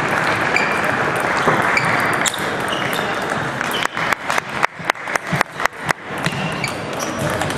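Steady hall din from many table tennis tables, with scattered ticks of ping-pong balls. About four seconds in, a rapid run of about a dozen sharp ball clicks lasts roughly two seconds.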